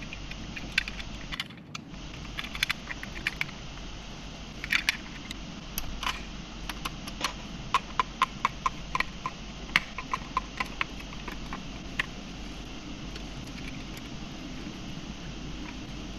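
Small metal clicks and clinks from screws and an oven door hinge being worked on with hand tools. The clicks come in a quick irregular run through the middle, some of them evenly paced.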